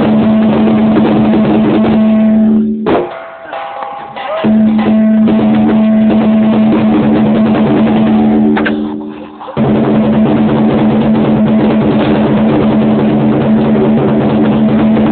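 Lion dance percussion, drum with crashing cymbals and a ringing gong, playing loudly and continuously. It drops away briefly about three seconds in and again near nine seconds, then starts up again.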